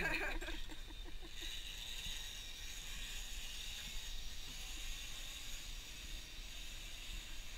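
Zipline trolley pulleys running along the steel cable, a steady hissing whir that starts about a second and a half in.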